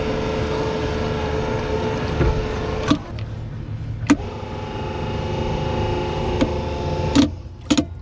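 Bumper boat's motor running steadily, dipping with a click about three seconds in and picking back up, then cutting out near the end as the boat's power is shut off.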